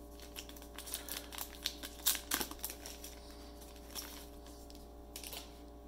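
Foil wrapper of a trading card pack crinkling and crackling as it is torn open and the cards are pulled out: an uneven run of short crinkles and clicks, busiest about two seconds in.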